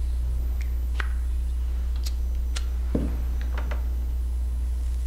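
A steady low hum with a few faint clicks and taps scattered through it.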